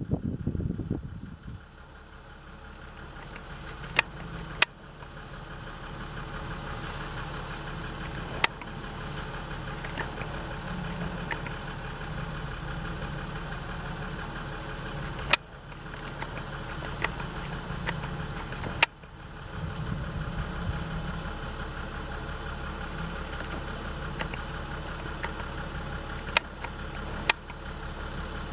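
Vehicle engine idling steadily, with a few sharp clicks scattered over it.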